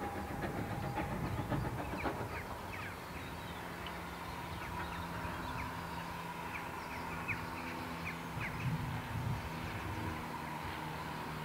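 GWR Small Prairie 2-6-2 tank engine approaching, a faint steady low rumble, with the tail of its whistle dying away in the first second. Small birds chirp over it.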